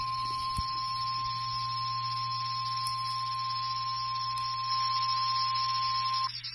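NOAA Weather Radio's 1050 Hz warning alarm tone: one steady, unbroken beep over a low hum and hiss, cutting off suddenly near the end. It is the attention signal that a severe thunderstorm warning is about to be read.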